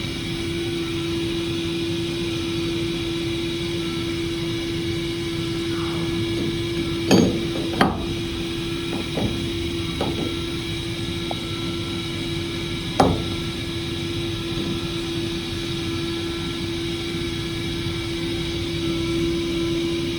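Hurco CNC milling machine running with a steady tone, with a few sharp knocks about a third and two thirds of the way through.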